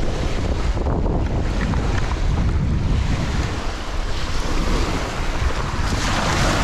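Strong wind buffeting the microphone as a heavy low rumble, over lake waves washing against the bank, with a louder rush of hiss near the end.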